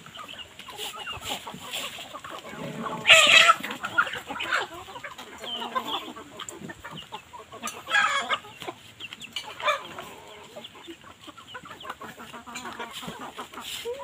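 A flock of chickens clucking and calling as they feed, many short calls overlapping, with two louder bursts about three seconds in and about eight seconds in.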